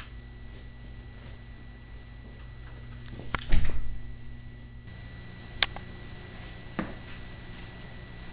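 A steady low hum with a loud clattering thump about three and a half seconds in, then two sharp single knocks.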